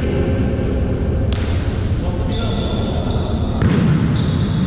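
Volleyball being struck and bouncing on an indoor court, two sharp hits about a second in and again near the end, over a steady murmur of players' voices echoing in a large hall.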